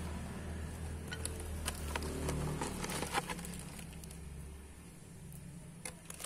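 Scattered light clicks and rustles of someone moving about on garden soil and leaf litter, over a low steady hum that drops away about five seconds in.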